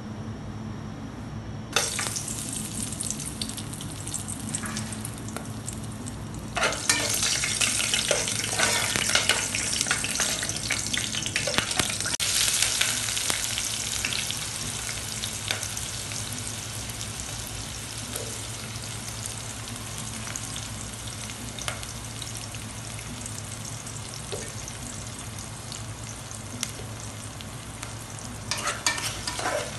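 Hot oil in an aluminium pot starts sizzling when whole spices drop in about two seconds in, then gets much louder when sliced onions go in a few seconds later, settling into a steady frying sizzle that slowly fades. A steady low hum runs underneath, and near the end come the clicks and scrapes of stirring.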